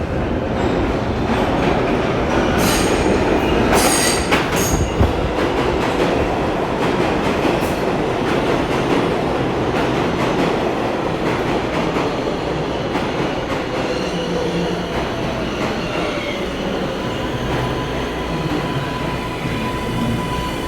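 New York City subway 7 train running through the station with a steady loud rumble. Metal wheels squeal sharply on the rails a few seconds in, a pitched motor whine falls slowly through the middle, and a steady high tone sounds near the end.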